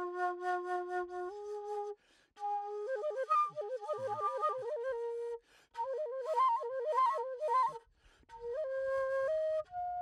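A homemade flute cut from a dried desert flower stalk playing a slow, breathy-toned melody: long held low notes, then phrases full of quick trills and ornaments, broken by short gaps, rising near the end to higher held notes.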